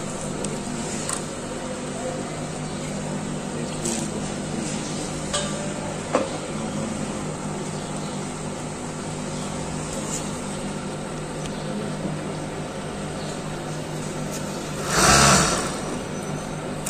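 Industrial overlock sewing machine's motor humming steadily while the machine is not stitching, with a few light clicks. About fifteen seconds in there is a brief, louder rush.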